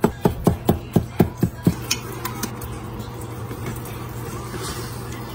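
Slotted metal turner chopping shredded pot roast against a flexible cutting mat: sharp, even taps about four a second that stop a little under two seconds in, leaving a low steady hum.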